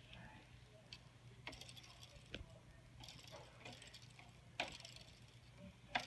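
Small fan handled by hand, giving faint, irregular ticks and clicks over a low steady hum; the owner dislikes the noise it makes.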